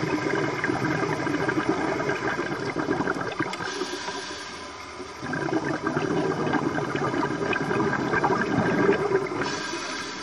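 Scuba diver's exhaled bubbles gurgling from the regulator underwater, in two long exhalations with a short pause about halfway through.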